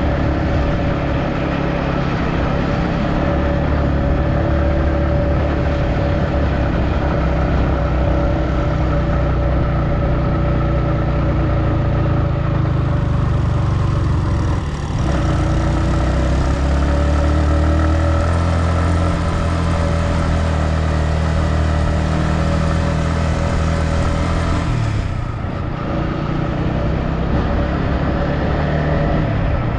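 Motor vehicle engine and road noise while driving, running steadily, with brief dips in level about halfway through and again near the end.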